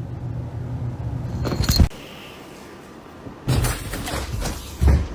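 A low steady hum cut off about two seconds in, then sharp knocks or thumps: three in all, about a second and a half apart.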